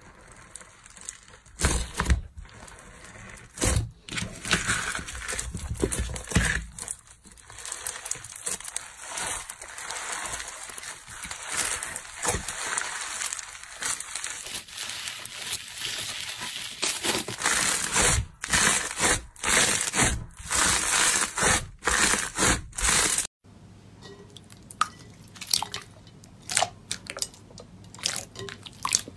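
Crunchy bead-packed slime (clear slime full of tiny plastic needle beads) being pressed, squeezed and stretched by fingers: a dense crackling crunch with many louder crunches on each squeeze. About three-quarters of the way through it stops abruptly, giving way to quieter wet squishing and small pops of glossy slime.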